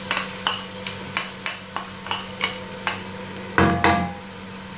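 Tomato paste being scraped from a bowl into a pot of frying onions, a series of light knocks about three a second over a faint sizzle. About three and a half seconds in comes a louder scrape and clatter as a wooden spoon stirs it in the aluminium pot.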